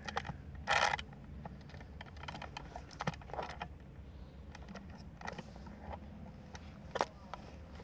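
Scattered clicks and knocks of a camera tripod being handled and adjusted, its legs, plastic leg clamps and head moved about, with a brief louder rasp just under a second in and a few sharper clicks later.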